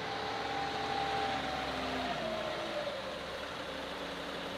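John Deere compact utility tractor's diesel engine running under the loader, with a whine that slides down in pitch about halfway through.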